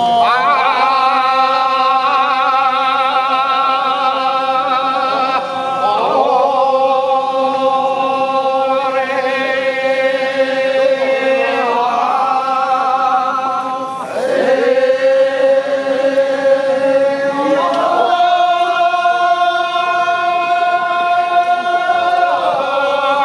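Kiyari, the traditional Japanese fire-brigade work chant, sung by a group of men in long held notes with vibrato, in several phrases that break and shift pitch.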